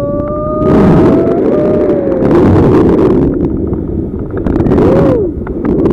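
Heavy wind buffeting on the microphone during a tandem paraglider flight, with gusts about a second in and again near the end. Over it, a passenger lets out a long sliding whoop at the start and a short rising-and-falling one near the end.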